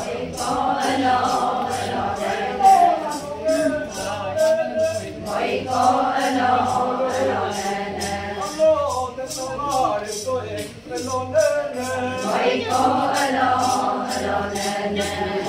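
Group of Adi women singing a Ponung dance song in chorus, the voices rising and falling together. A shaken rattle keeps a steady beat a little over twice a second under the singing.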